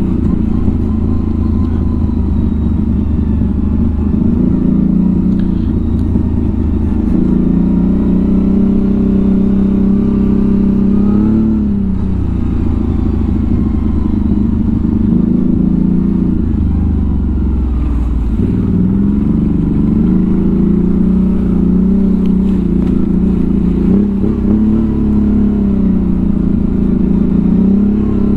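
ATV's 1000 cc V-twin engine running as it is ridden over rough ground. Its pitch falls and climbs again with the throttle, most clearly about twelve seconds in and again about eighteen seconds in.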